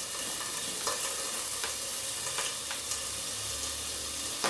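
Bacon-wrapped chicken fillet sizzling in oil on a covered stovetop grill pan: a steady frying hiss with a few faint pops, and a single knock near the end.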